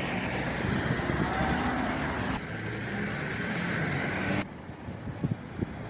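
Street ambience with traffic noise, changing abruptly twice as the scene cuts; two short knocks near the end.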